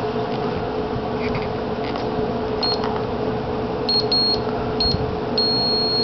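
Digital multimeter's continuity beeper across terminals 1 and 4 of a refrigerator defrost timer. It gives a few short, broken beeps from a little before halfway, then a steady tone from near the end: continuity, showing the timer's switch is closed between 1 and 4. A steady low hum runs underneath.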